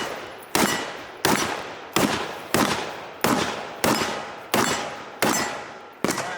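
AR-15 pistol (an 11.5-inch Arsenal Democracy AD-15) firing a steady string of semi-automatic shots, about nine in all, roughly one every two-thirds of a second. Each shot trails off in echo before the next.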